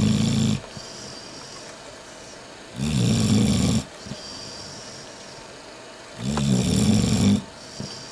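Sleeping dog snoring: one snore ends just after the start, then two more come, each about a second long and about three and a half seconds apart.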